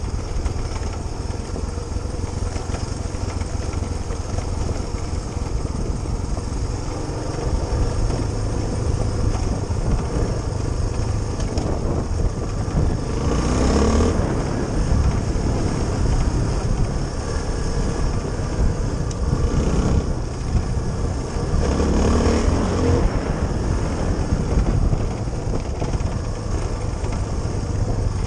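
Suzuki DR350SE's single-cylinder four-stroke engine running as the trail bike rides along a stony track, with a steady low rumble of wind on the microphone. The sound swells twice, about halfway through and again some eight seconds later.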